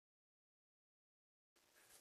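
Near silence: a digital gap with no sound, and only a very faint hiss in the last half second.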